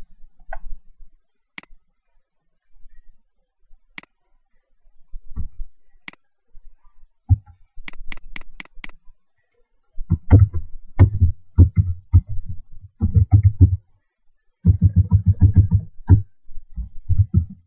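Computer mouse clicking a few times, with a quick run of five clicks about eight seconds in. Then about seven seconds of typing on a computer keyboard, in two runs of keystrokes.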